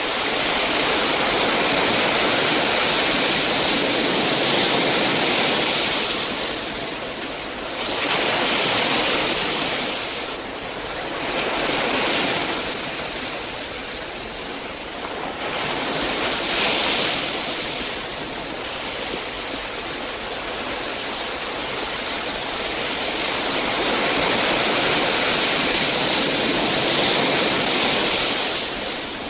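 Ocean surf and wind: a steady rushing noise that swells and ebbs every few seconds as waves break.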